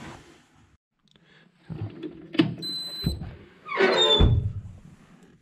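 Knocks and thumps inside a skid steer loader's cab as someone moves around in it, with a short high steady beep about two and a half seconds in and a louder clatter with a brief squeak around four seconds in.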